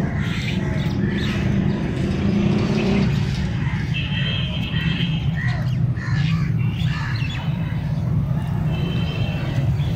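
Birds calling in short high calls, twice standing out clearly, over a continuous low rumble.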